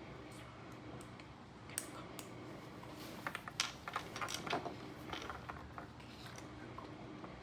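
Small plastic Lego pieces clicking and rattling as they are handled, with a cluster of quick clicks in the middle.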